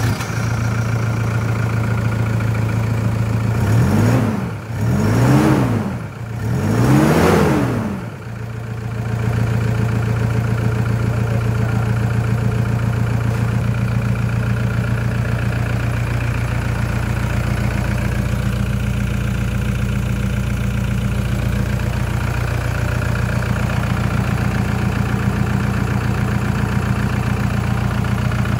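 2011 Toyota Hilux D-4D four-cylinder turbodiesel idling just after a start, revved up and back down three times in quick succession a few seconds in, then settling to a steady idle.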